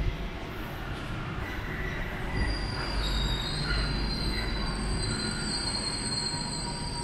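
Paris Métro line 1 rubber-tyred train approaching the station, a low rumble with a high, steady squeal of several tones setting in about two and a half seconds in and growing a little louder.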